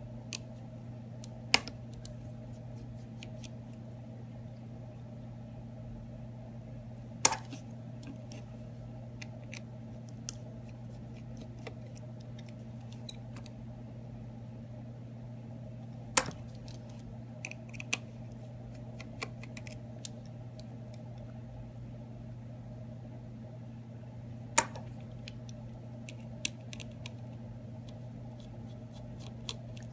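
Small screwdriver and tiny screws being handled while the screws are taken out of an iPhone 6's internal plate: scattered light ticks and four sharper clicks as tools and screws touch the work surface, over a steady low electrical hum.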